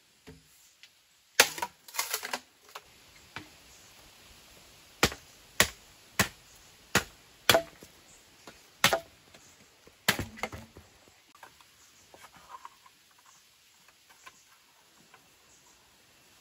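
A machete chopping into bamboo poles: about ten sharp, hollow-sounding strikes at uneven intervals, followed by faint light taps and clicks of bamboo pieces being handled for the last few seconds.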